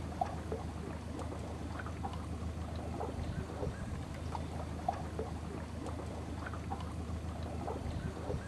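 Boat engine running with a steady low drone, with short faint higher sounds scattered over it.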